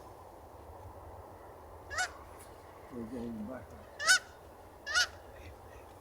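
Goose honks: three short, sharp calls about two, four and five seconds in, the one at about four seconds the loudest, with a lower, falling call near three seconds. A steady low rush of wind noise runs underneath.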